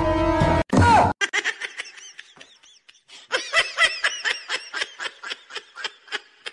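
A loud sustained sound with many pitches cuts off about a second in. It is followed by a long run of quick, high-pitched giggling laughs, about three or four a second.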